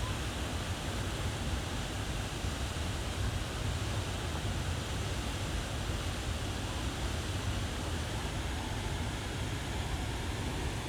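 Steady rush of a jungle waterfall, an even roar of falling water with no let-up.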